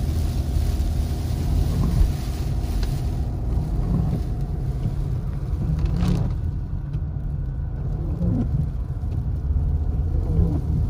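Car interior while driving: a steady low engine and road rumble with tyres hissing on a wet road, the hiss easing after about three seconds. A single light click sounds about six seconds in.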